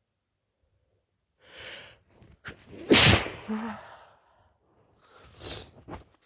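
A woman sneezing once, loudly and suddenly, about three seconds in, preceded by a sharp in-breath as the sneeze builds, part of a sneezing fit. Near the end comes another quick breathy intake.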